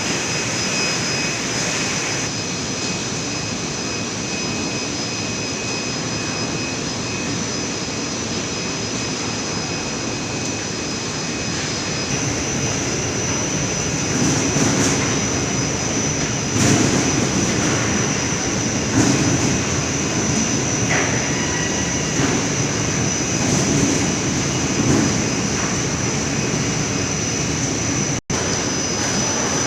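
Poultry-processing machines, a screw chiller and a chicken-carcass drainer, running with a steady mechanical drone and a thin high whine. Irregular knocks and rattles come in about halfway through, and the sound cuts out for an instant near the end.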